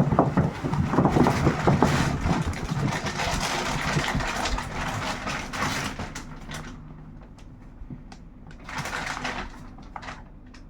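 Plastic packaging wrap being pulled off and crumpled, with loud, continuous crinkling and rustling that dies down after about six seconds and flares up again briefly near the end.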